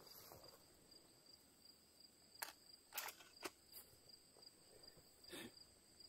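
Near silence with steady insect trilling and a few faint clicks as shotgun shells are pushed one by one into a pump-action shotgun's magazine tube.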